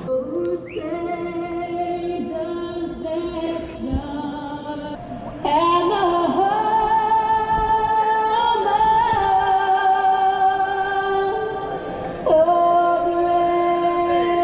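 A woman singing slow, long-held notes, which grow louder about five seconds in.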